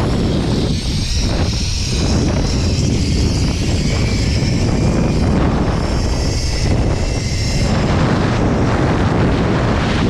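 Loud, steady wind rushing over the microphone on a fast zipline ride, with the zipline trolley running along the steel cable.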